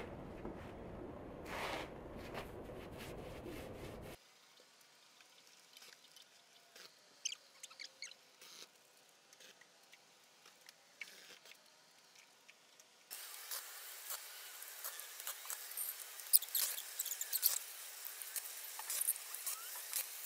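Paintbrush bristles scratching over the rough cement render of a brick oven's shell in short strokes. The strokes are faint and sparse at first, then denser and louder from about two-thirds of the way in. A steady noise in the first few seconds cuts off abruptly.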